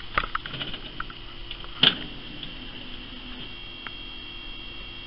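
Barcrest Cloud 999 fruit machine just switched on: a few sharp clicks, the loudest about two seconds in, then a steady electrical hum with a high, even whine.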